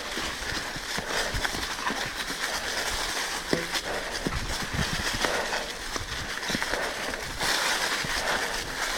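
Mountain bike riding over a bumpy, leaf-covered dirt trail: a steady rush of tyre noise through the leaves with frequent small clicks, knocks and rattles from the bike.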